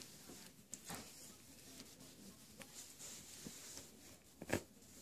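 Faint rustling and scratching of miniature poodle puppies moving about in a fleece dog bed, with scattered small clicks and one sharp tap about four and a half seconds in.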